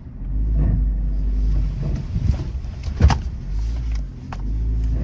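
Suzuki S-Cross Hybrid's 1.5-litre petrol engine working through deep mud, heard from inside the cabin as a low rumble that dips and picks up again, with one sharp knock about three seconds in.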